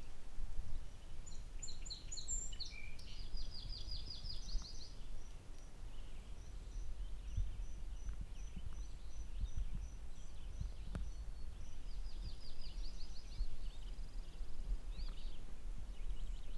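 Songbirds singing: a fast high trill, then a long run of evenly spaced high single notes at about three a second, then another trill near the end, over a steady low rumble.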